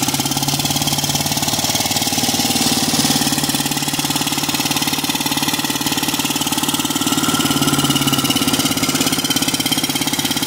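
Diesel engine of a big Mercedes-Benz truck running steadily with a deep rumble.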